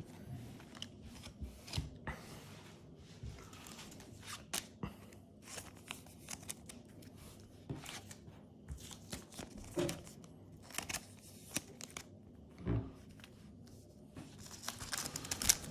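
Yu-Gi-Oh cards and foil booster-pack wrappers being handled: faint scattered rustles, taps and crinkles, growing into steady crinkling of a foil wrapper near the end.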